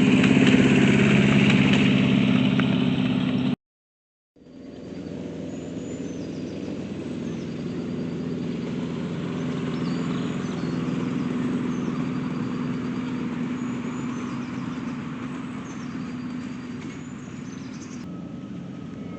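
Small engine of a 7¼-inch gauge miniature railway locomotive running steadily, cut off by a short silence about three and a half seconds in and then heard again more quietly. Birds chirp faintly in the background of the second part.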